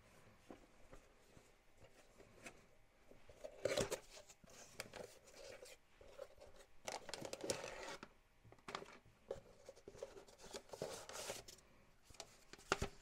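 A cardboard kit box being opened by hand, then a clear plastic bag of parts rustling and crinkling as it is pulled out, in several irregular bursts with a few sharp clicks.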